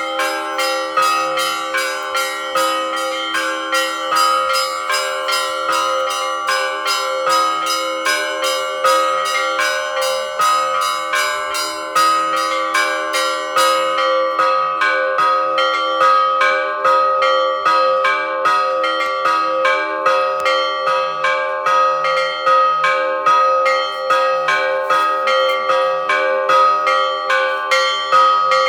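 Russian Orthodox monastery bells ringing a festive peal: small bells struck in a quick, steady rhythm, about three to four strokes a second, over the sustained ringing of larger bells.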